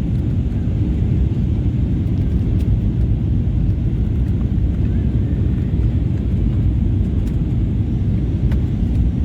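Steady low rumble inside the cabin of an Airbus A320neo in flight on approach: engine and airflow noise, with a few faint clicks.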